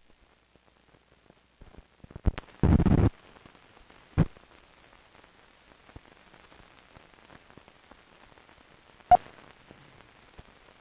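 Crackle and hiss of an old film's optical soundtrack running under a countdown leader. A short loud burst of noise comes about two and a half seconds in, with sharp pops about four and nine seconds in.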